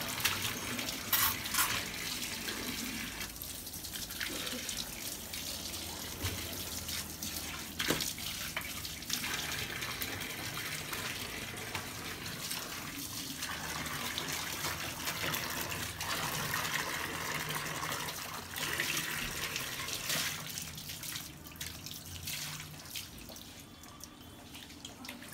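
Water from a tap splashing into a plastic bucket while goat tripe and intestines are rubbed and sloshed by hand, with scattered wet slaps. It gets quieter in the last few seconds.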